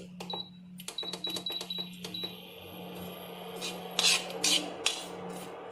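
Fox nuts (makhana) being stirred in a kadhai as they dry-roast, giving scattered scraping and clattering, loudest about four seconds in. A quick run of short, high electronic beeps sounds about a second in, over a steady low hum.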